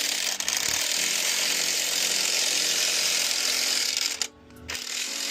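Impact wrench hammering on a wheel lug nut, stopping briefly about four seconds in and then starting again more quietly. The socket is a poorly fitting setup on the nuts, a way of working that risks damaging them.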